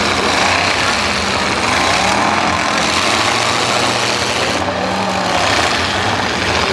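Several demolition derby cars' engines running and revving together, their pitch rising and falling over a steady wash of noise.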